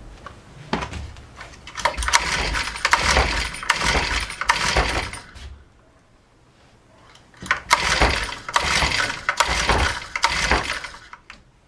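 Honda UMK-422 brushcutter's recoil starter pulled over and over in two runs of rapid pulls, separated by a short pause. The engine cranks without catching: it still won't start.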